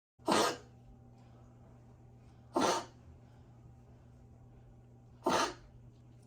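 Dog coughing in three short, harsh bursts about two and a half seconds apart: the cough of a dog with grade-four tracheal collapse.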